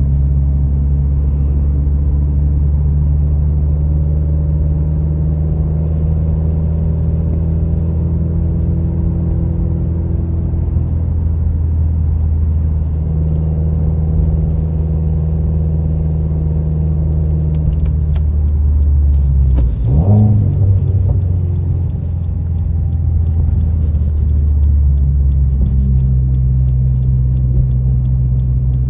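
Subaru WRX's turbocharged flat-four engine heard from inside the cabin, droning steadily while cruising, with a quick rise and fall in engine pitch about twenty seconds in.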